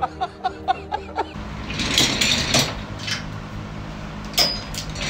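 A fast run of short snickering laughs, about five a second, for the first second or so. Then a few separate knocks and scrapes from a wheeled office chair being handled on a tile floor, with a brief high squeak near the end.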